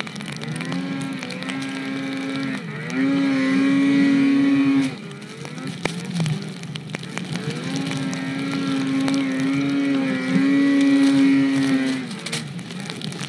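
Snowmobile engine running hard, its pitch rising and falling as the throttle is worked. It is loudest in two long pulls, about three to five seconds in and again near the end.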